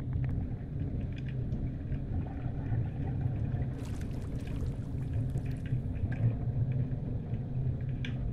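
Underwater ambience in shallow sea water: a steady low rumble with scattered faint clicks, and a burst of crackling about four seconds in that lasts a second and a half or so.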